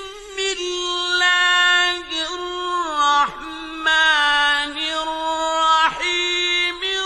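Quran recitation by a solo male reciter: one high voice chanting in long held notes that bend and waver in pitch, broken by short pauses between phrases.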